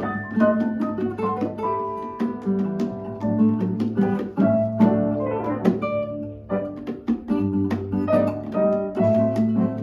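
Acoustic guitar played solo and fingerpicked: a quick run of plucked melody notes ringing over bass notes, with a short lull a little past halfway before the notes carry on.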